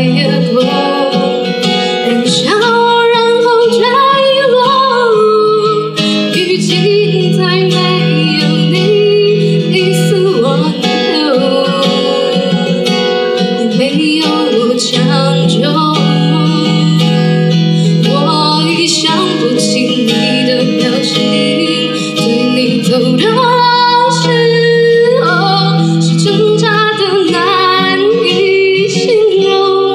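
A woman singing into a microphone, accompanied by a solo acoustic guitar played with a capo, in a live amplified performance.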